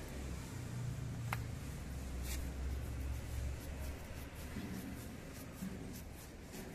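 Paint roller spreading floor paint over rough concrete, a soft rasping rub, with a couple of sharp clicks in the first half. A low rumble underneath stops about four seconds in.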